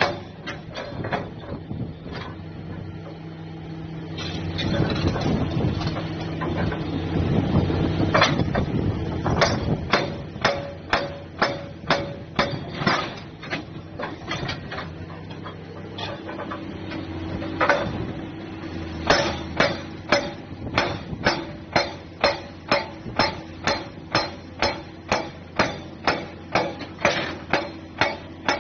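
Sparkle S400D hydraulic breaker with a 175 mm chisel hammering rock, a long run of sharp blows that settle into a regular beat of about two a second. A few seconds in, the blows run together into a louder, denser stretch. The Caterpillar excavator's diesel engine drones steadily underneath.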